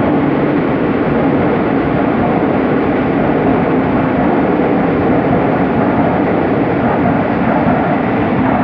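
Madrid Metro Serie 8400 electric train running out of an underground station, a steady loud rumble of wheels on rails and traction motors as the cars pass along the platform.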